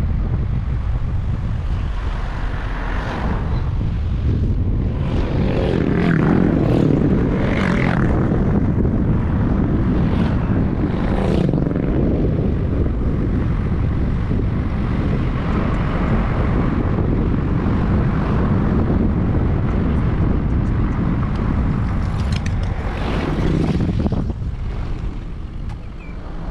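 Steady, loud rumble of a moving vehicle, strongest in the low range, swelling a few seconds in and dropping off near the end.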